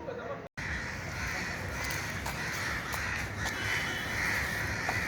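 A flock of crows cawing all at once in a dense, continuous chorus: agitated calling around one of their own caught in kite string. The sound cuts out completely for a moment about half a second in.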